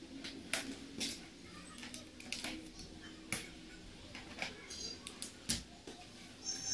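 Irregular plastic clicks and knocks as propeller guards are snapped onto the arms of a toy quadcopter and the light plastic drone is handled on a wooden table.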